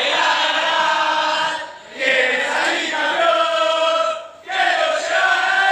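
A group of men singing a football chant together, loud and in unison, in phrases broken by two short breaks, about two and four and a half seconds in.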